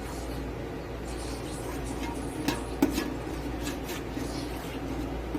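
A spoon stirring vegetables in a cooking pot, scraping and clinking against the pot, with a few sharp clinks between about two and a half and four seconds in.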